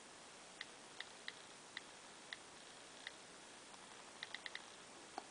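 iPhone on-screen keyboard key clicks, one short click for each key tapped while typing. About eleven clicks at an uneven typing pace, with a quick run of four about four seconds in.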